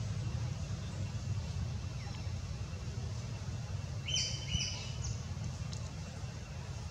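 A quick run of short, high-pitched chirps about four seconds in, over a steady low rumble of outdoor background noise.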